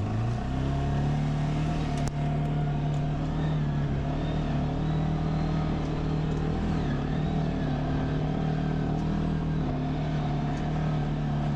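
Vehicle engine picking up speed, its pitch rising in the first second, then running steadily as the vehicle drives along in a low gear.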